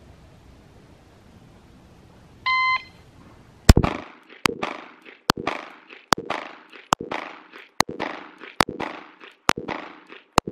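Electronic shot timer beeps once, then about a second later a 9mm Glock 19 Gen 5 pistol fires a rapid string of single shots, roughly one every half second to second, each crack ringing off briefly. This is a timed shooting drill started on the beep.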